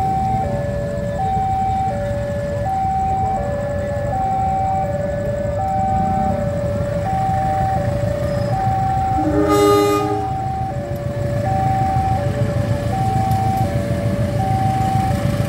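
Level-crossing warning alarm sounding a steady two-tone signal, alternating high and low about every 0.7 s, over the low rumble of an approaching diesel locomotive. A short horn blast sounds about nine and a half seconds in.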